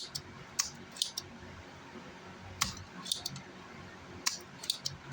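Irregular sharp clicks and light taps from small hand tools on an amplifier circuit board, about a dozen in five seconds, some close together in pairs.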